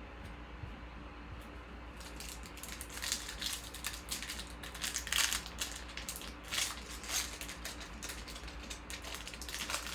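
Crinkling and rustling of trading-card packs and their foil wrappers being handled, starting about two seconds in as a quick, irregular run of crackles.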